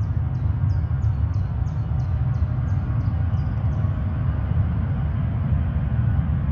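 Distant steady low rumble of a Swiss Airbus A340's four jet engines at takeoff power. A quick run of short high chirps, about three a second, sounds over it in the first half.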